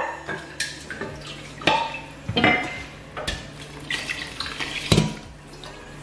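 Stainless steel bowl clinking and knocking against a stainless steel stockpot as soup is poured from it into the pot, with the soup splashing in. The clinks come irregularly and ring briefly, the loudest near the end.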